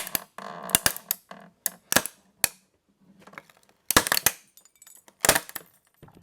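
Empty plastic Scotch tape roll cracking and snapping under the jaws of a homemade lever-action crimper: a run of sharp, irregular cracks, some in quick clusters, with a last loud crack near the end.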